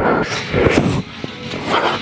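A man's forceful exhalations and grunts as he strains through weighted pull-ups, in bursts about once a second.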